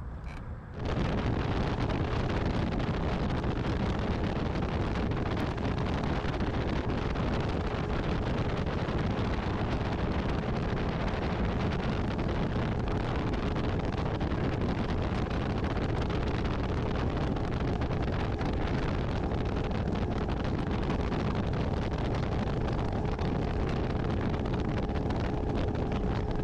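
Bass boat running across the lake: a steady outboard motor drone under heavy wind noise buffeting the microphone, starting abruptly about a second in.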